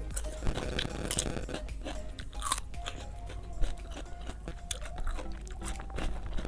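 Crisp crunching bites and close chewing of raw cucumber, a run of sharp crunches through the whole stretch.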